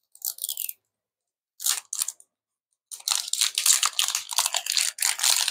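Crinkly plastic wrapping being torn and peeled off a Zuru Mini Brands capsule. It starts with two brief rustles, then turns into continuous crackling and crinkling about three seconds in.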